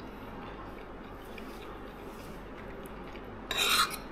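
A single short scrape about three and a half seconds in, from an eating utensil scraping a plate, over a steady low background hiss.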